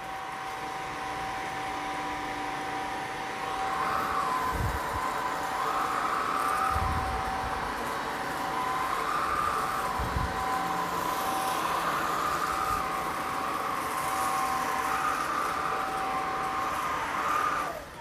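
Eureka Elevate cordless stick vacuum running over carpet, a steady motor and brush-roll whine whose pitch rises and dips slightly every couple of seconds as it is pushed back and forth picking up pet hair, with a few dull low thumps. It stops near the end.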